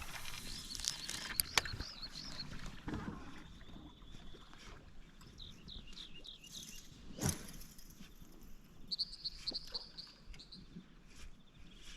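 Small birds chirping in short runs of quick, high notes, over faint noise of water and the boat. One sharp knock comes about seven seconds in.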